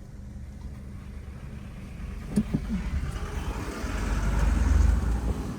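A motor vehicle's engine running with a steady low rumble that grows louder over the last two to three seconds.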